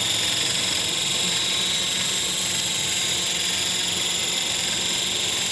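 Large battery-powered RC helicopter hovering: a steady high whine from the electric motor and spinning rotors.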